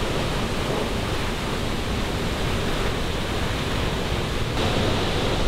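A large waterfall in spate after heavy rain, its falling water making a loud, steady rush with no change in rhythm.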